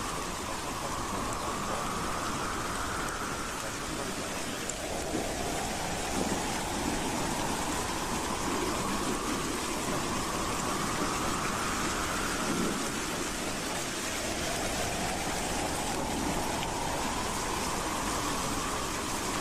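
Howling wind: a steady rushing noise with a whistling tone that slowly rises in pitch over several seconds, three times.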